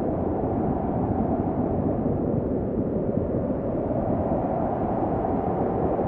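Snowstorm ambience: a steady, deep wind noise with no distinct gusts, even in level and with little high hiss.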